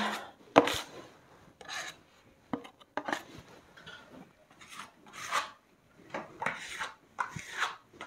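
Plastering spatula scraping wet gypsum plaster on a wall in a string of short, irregular strokes.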